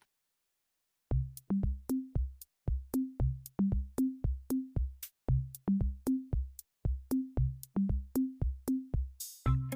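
Background music: an electronic beat of deep pitched bass-drum hits with clicks, starting about a second in, with sustained synthesizer tones joining near the end.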